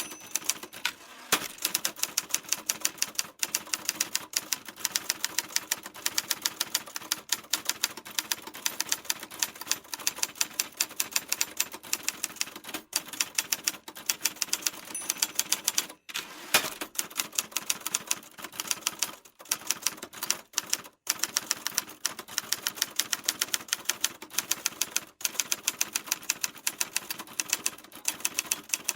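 Typewriter keys struck in quick, steady typing, a rapid run of sharp clacks with only brief pauses.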